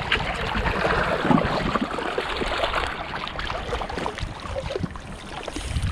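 Sea water sloshing and splashing against shoreline rocks, with many small irregular splashes and drips.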